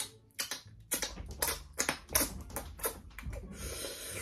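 Plastic snack packaging handled and opened: a run of sharp, irregular crinkles and clicks, with a longer steady rustle near the end.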